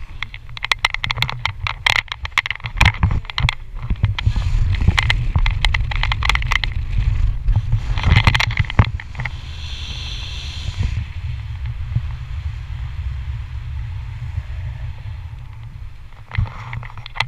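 Wind buffeting a handheld action camera's microphone on a parasail in flight: a steady low rumble with frequent crackles and knocks, easing a little in the last few seconds.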